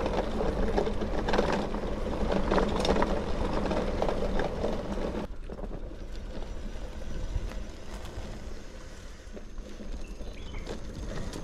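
Bicycle coasting down a steep concrete road: a rushing noise with rattling knocks, which drops suddenly to a quieter hiss about five seconds in.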